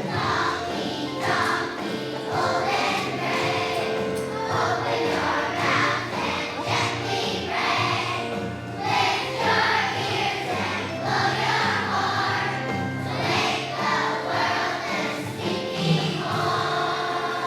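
A choir of young children singing a song together over musical accompaniment.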